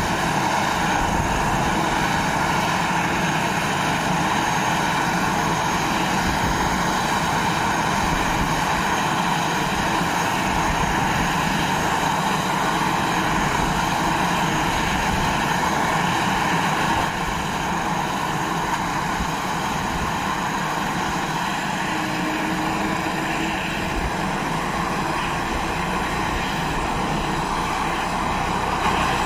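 Airbus H145 helicopter running on the ground with its rotor turning: a steady turbine whine over the rotor's noise, with a slight drop in level about two-thirds of the way through.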